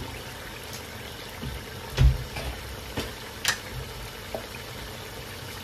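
Kitchen handling sounds while cooking: one low thump about two seconds in, then three or four sharp clicks and knocks of utensils or cookware, over a steady background hiss.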